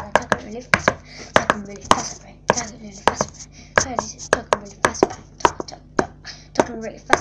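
Fingers tapping and knocking on the tablet that is recording, right at its microphone: a quick, irregular run of sharp taps, often in pairs, about three or four a second.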